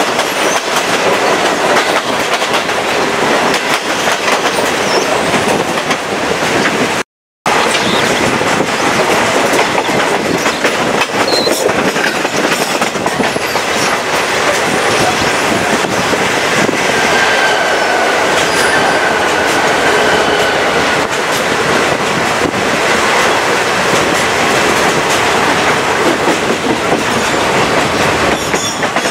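Chepe passenger train running along the track, heard from an open window of a moving car: steady wheel-and-rail noise with clickety-clack over the rail joints and rushing air. A faint high wheel squeal comes in midway. The sound drops out completely for a moment about seven seconds in.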